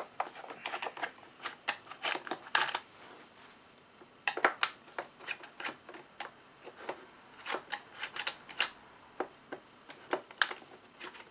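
Irregular clicks, taps and scrapes of a plastic project box being handled while its cover screws are undone, with a few sharper clicks among them.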